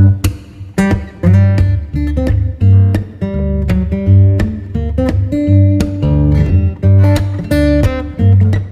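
Background music: acoustic guitar strumming chords over a bass line, with a steady beat.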